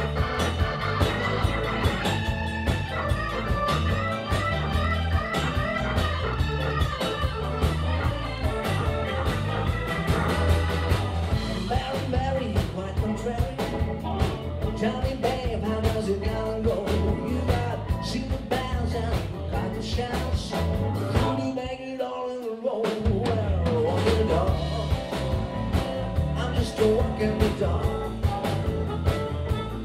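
A live blues band (electric guitar, keyboard and drums) playing an instrumental break, with a blues harmonica soloing over it. About two-thirds of the way through the band stops for about a second, then comes back in.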